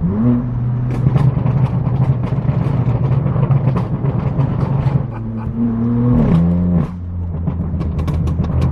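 A car engine running with a steady note. The revs climb sharply at the start and again about five and a half seconds in, hold high briefly, then drop back in two steps.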